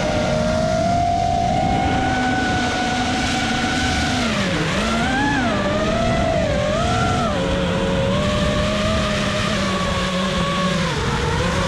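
FPV quadcopter's brushless motors and propellers whining, the pitch rising and falling with throttle, steadier near the end. A rush of wind and prop noise runs underneath, recorded by the onboard GoPro Hero 7.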